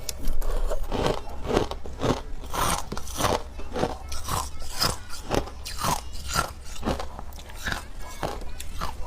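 Someone chewing crunchy food close to the microphone, about three crunches a second.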